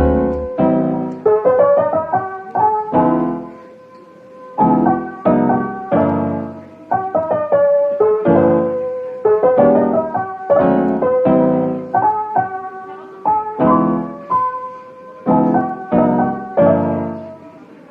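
Background music: a soft piano melody with chords struck and left to ring at a relaxed tempo.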